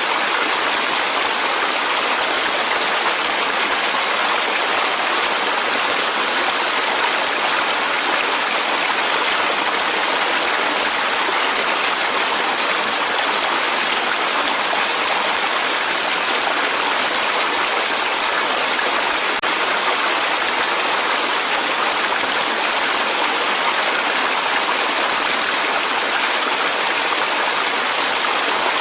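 Clear mountain stream flowing over rocks in a valley, a steady rushing and splashing of water.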